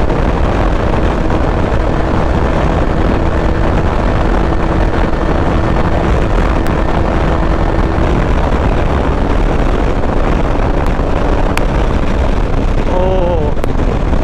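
Motorcycle engine at full throttle around 150 km/h, almost buried under heavy wind rush on the camera. The engine note holds steady, then fades about two-thirds in as the speed drops, and a short wavering tone sounds near the end.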